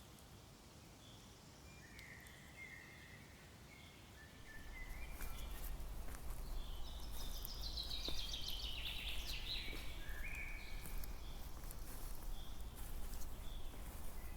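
Outdoor ambience with short, high chirping animal calls and a burst of rapid chattering calls in the middle. A low rumble sets in about four and a half seconds in.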